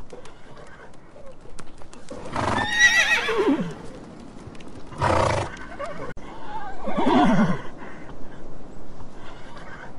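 An animal calling: two drawn-out cries that fall in pitch, one about two and a half seconds in and one about seven seconds in, with a short, harsh noisy blast between them.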